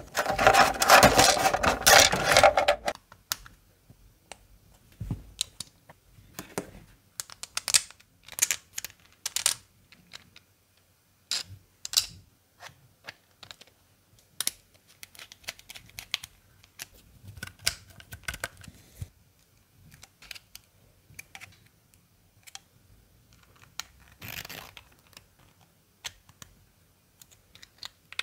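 Hard plastic clicks and taps as 3D-printed PETG miniature vice parts are handled and fitted together, scattered irregularly with short pauses. The first three seconds hold a louder, denser, steady noise.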